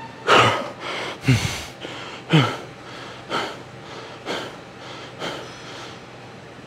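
A man gasping for breath, one heavy breath about every second, the breaths growing fainter as he recovers. He is winded from a hard high-rep leg set.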